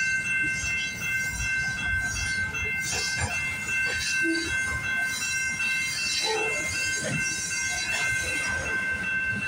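Freight cars of a CPKC train rolling past over a road crossing: a steady rumble of wheels on rail, with sharp clacks now and then as wheels cross rail joints. Steady high ringing tones run through it all.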